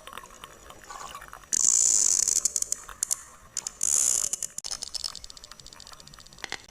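Sperm whale clicking underwater: trains of sharp clicks that speed up into dense, buzzing click bursts twice, about one and a half and four seconds in.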